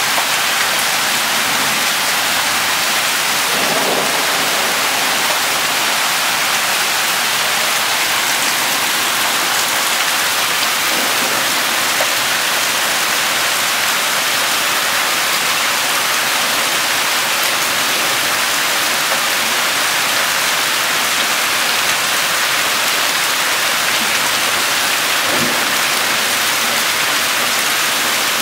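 Hailstorm: hail and rain pelting the ground, plants and yard in a loud, steady, even hiss.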